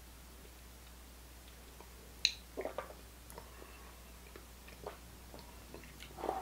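Faint mouth sounds of a person tasting a strong sip of cask-strength whisky: a sharp click a little over two seconds in, then lip smacks and small tongue clicks, with a short breath near the end.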